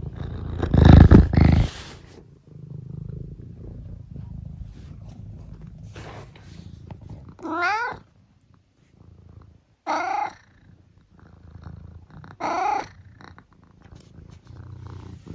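Tabby cat purring steadily, with three short meows spread through the middle and later part. A loud rustling bump about a second in.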